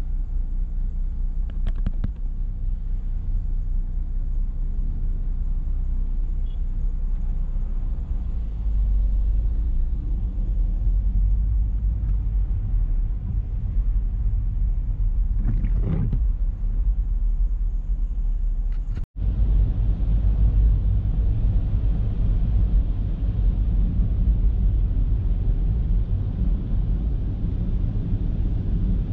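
Steady low rumble of a car's engine and road noise heard inside the cabin, with a short swish about halfway through. The sound cuts out for an instant about two-thirds of the way through, then resumes slightly louder.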